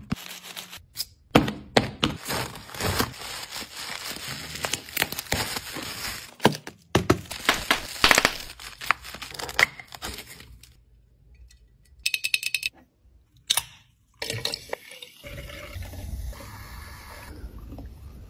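Hands opening a tape-wrapped plastic parcel: crackling and crinkling of the packaging with tape peeling and tearing, broken by sharp clicks and taps. A short run of quick ticks comes about two-thirds through, and a softer steady noise takes over for the last few seconds.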